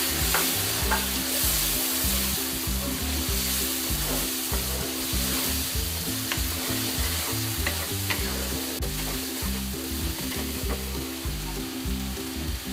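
Onions and ground spices sizzling in oil in a nonstick pan while a wooden spatula stirs and scrapes through them: a curry masala being fried down (koshano), with a little water added to keep it from burning.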